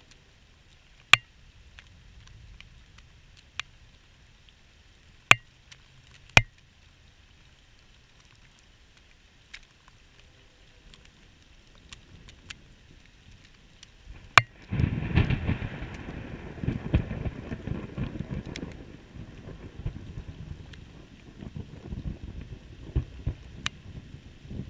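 Thunderstorm: a few sharp ticks, then about halfway through a sharp crack of thunder followed by loud, low rolling rumble that carries on to the end.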